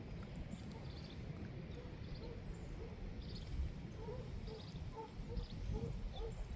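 Neighbor's dogs barking in the distance, many short repeated barks over a steady low rumble.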